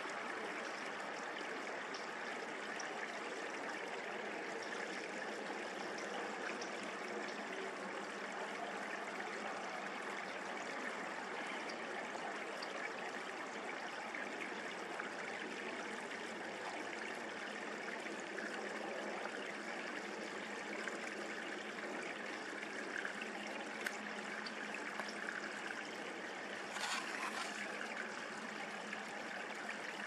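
Steady rushing of flowing water, with a sharp click about six seconds before the end and a brief louder burst of noise a few seconds later.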